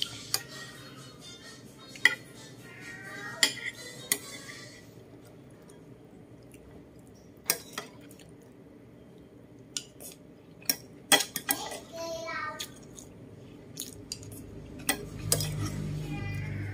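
Metal spoon clinking and scraping against ceramic bowls as food is scooped and mixed, with about a dozen sharp clinks spread irregularly through, a cluster of them about eleven seconds in.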